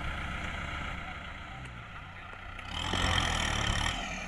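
Diesel engine of heavy farm machinery running steadily, swelling louder for about a second near the end, as under added throttle or load.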